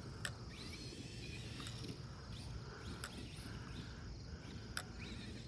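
Faint, distant whine of a brushless RC truck motor rising and falling in pitch as it revs, over a bed of insect noise. There are a few sharp clicks scattered through it.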